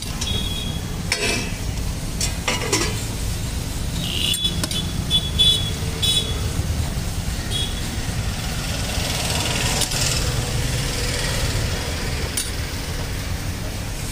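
Roadside street-stall ambience: a steady low rumble, with a few light metal clinks and knocks from utensils at the dosa griddle.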